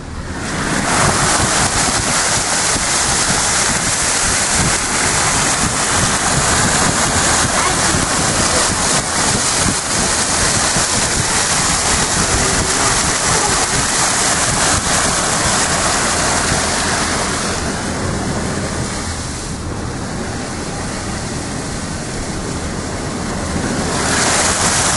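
Car driving through floodwater on the road, water rushing and spraying against the car in a loud, steady wash that starts suddenly, eases a little for several seconds near the end, then builds again.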